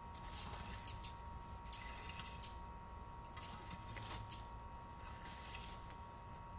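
Rake tines scratching through dry grass and brush on hard ground, about five strokes, each a short scratchy rustle with the odd sharp click.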